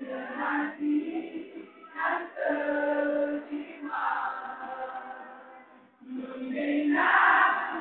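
A large group of voices singing together in phrases with long held notes, breaking off briefly about two seconds in and again about six seconds in.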